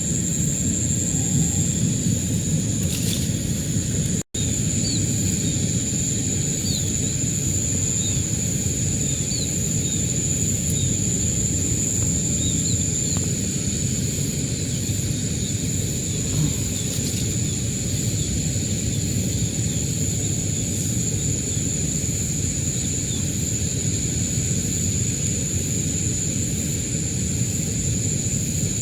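Rural outdoor ambience: a steady high-pitched insect drone with many short, faint bird chirps over a constant low rumble. The sound cuts out for an instant about four seconds in.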